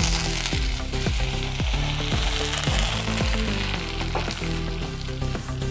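Vellayappam rice batter sizzling in a hot, oiled cast-iron kadai as the pan is swirled to spread the batter round its sides.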